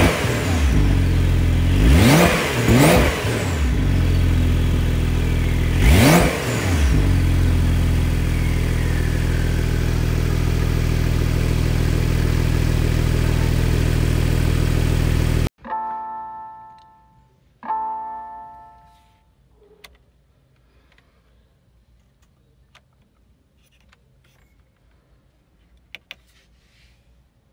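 Porsche 992 911 Carrera's 3.0-litre twin-turbo flat-six through its sports exhaust, blipped to quick revs four times, then idling steadily until the sound cuts off abruptly about halfway through. Two electronic chimes from the car follow, and near the end come a couple of faint clicks from the steering-wheel drive-mode switch being turned.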